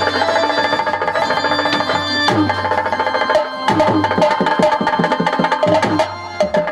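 Live folk band music: busy hand-drum and kit drumming, with deep strokes that slide down in pitch, over a held melody line.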